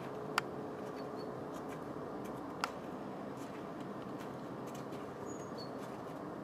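Steady outdoor background rush with two sharp, short clicks, one about half a second in and one about two and a half seconds in, and a few faint high chirps.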